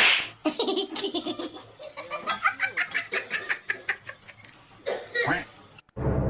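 A person laughing hard in quick, repeated bursts, after a sudden loud noisy burst at the very start; music cuts in near the end.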